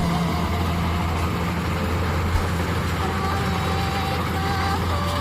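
Kubota DC70 Plus combine harvester's diesel engine running steadily under harvesting load, a constant low hum with faint higher whines. A single sharp knock comes a little over two seconds in.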